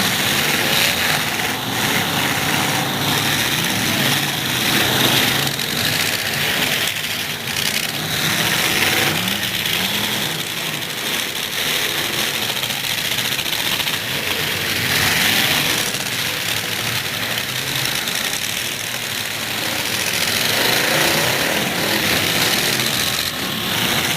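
Demolition derby trucks' engines revving and running hard, rising and falling in pitch over a steady wash of noise.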